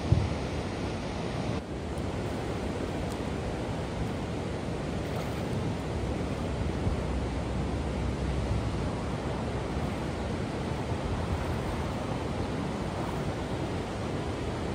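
Steady rush of floodwater pouring over a weir and churning in the rapids below it. A short low thump right at the start.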